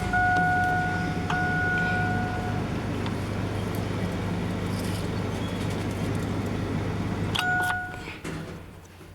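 Chevy Astro van engine running with a steady electronic warning tone for the first couple of seconds; about seven and a half seconds in the engine shuts off, with a few clicks and a short return of the tone.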